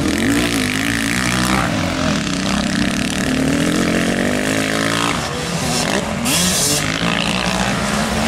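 Motocross bike engines racing round a dirt track, their note repeatedly climbing and falling as the riders work the throttle through the turns. About five seconds in, one engine's long climb cuts off sharply as the rider shuts the throttle.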